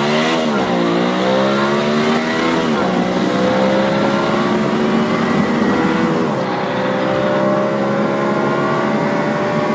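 Car-engine revving sound, a simulated engine note that swoops up and down twice in the first three seconds, then runs at a steady, slowly climbing pitch with a brief dip about two-thirds of the way through.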